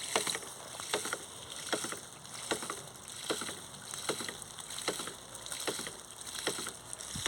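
50 mm PVC hydraulic ram pump running, its waste valve knocking shut in an even beat a little more than once a second over a steady rush of water. Each knock is a water-hammer pulse that pushes water up the delivery hose.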